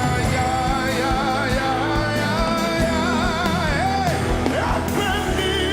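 Live worship music: a band with drums playing while voices sing with a wavering, ornamented melody.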